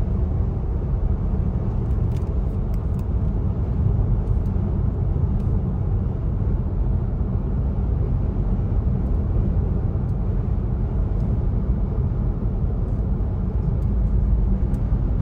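Steady road and engine noise of a moving car, heard from inside its cabin: an even low rumble with no breaks.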